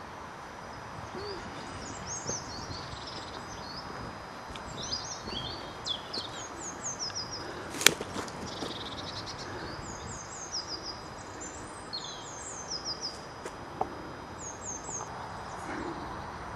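Small songbirds singing, with many short high chirps and quick runs of three falling notes, over a steady background hiss. A single sharp click about eight seconds in.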